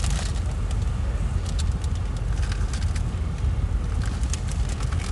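Steady low rumble of a car idling, heard inside the cabin, with a few short clicks and crunches from someone eating a toasted grilled cheese sandwich.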